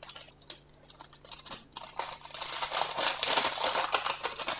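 Clear plastic packet and a thin, crinkly sheet of olive-brown Flashback fly-tying material crinkling as they are handled and unfolded. Scattered crackles come first, then a denser, louder crinkling from about two seconds in.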